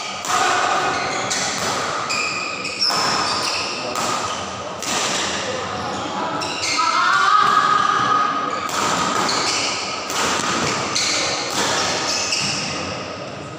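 Badminton rally: rackets striking the shuttlecock again and again, a sharp smack roughly every second, ringing in the hall, with spectators' voices and shouts between the hits.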